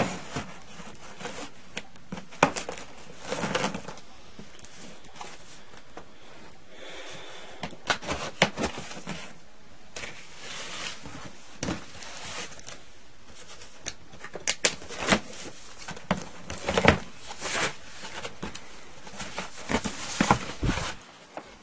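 A knife cutting and scraping through a cardboard box: irregular scrapes, rasps and small knocks of blade and hands on cardboard.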